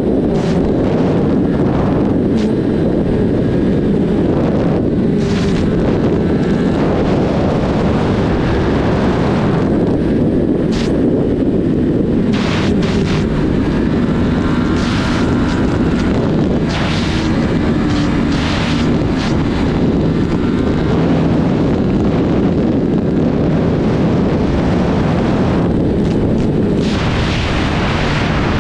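Sport motorcycle running at speed, its engine a steady loud drone mixed with wind noise on the microphone.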